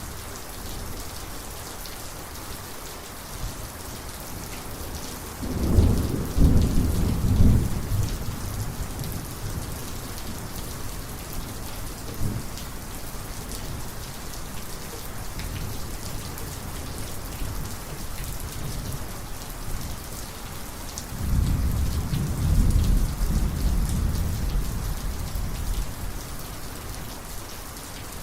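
Steady heavy rain falling, with two rolls of thunder: a loud rumble about six seconds in that dies away over a couple of seconds, and a longer one starting about two-thirds of the way through.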